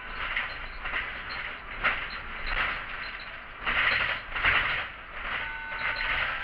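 City bus running along its route, heard from the driver's seat: uneven surges of noise and rattling, loudest a little under four seconds in and again just after four seconds.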